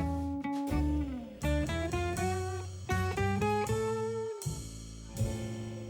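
Background music: guitar-led instrumental with picked notes over a bass line.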